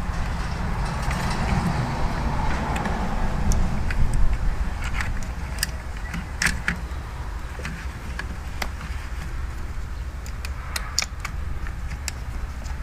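Steering wheel parts being handled and set in place: scattered light clicks and taps, a few together around the middle and again near the end, over a steady low rumble.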